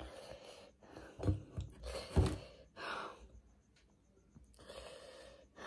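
A woman breathing hard against the burn of extreme chilli, with a couple of soft knocks about one and two seconds in.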